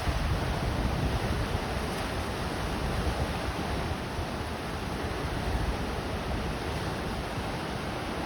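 Ocean waves rolling and washing ashore in a steady rush, with gusty wind buffeting the microphone.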